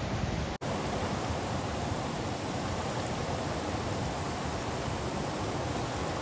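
Steady rush of fast-flowing river water, broken by a split-second gap about half a second in.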